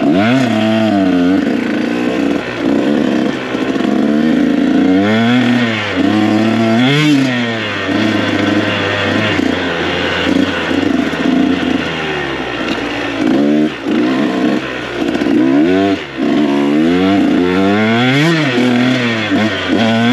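KTM 125 SX two-stroke dirt bike engine being ridden hard. It revs up and down in pitch again and again as the throttle is opened and closed and the gears change.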